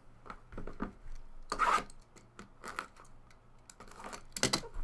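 Handling of trading cards and their packaging: short scrapes, rustles and clicks, with a louder scrape about a second and a half in and a quick run of clicks near the end.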